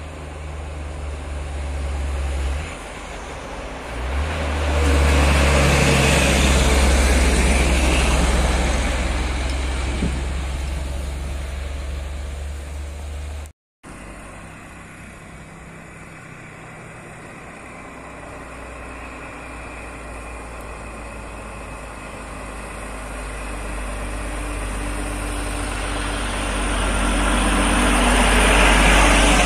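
Heavy diesel trucks driving toward and past the roadside, each a low steady engine drone that grows louder as the truck nears; the second is a Mitsubishi Fuso heavy truck. The sound cuts out for a moment near the middle, between the two trucks.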